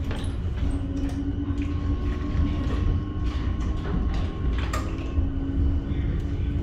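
MBTA Green Line Type 9 light-rail car running between stations, heard from inside the car: a steady low rumble with a constant hum over it, and a few sharp knocks and rattles, the clearest a little under five seconds in.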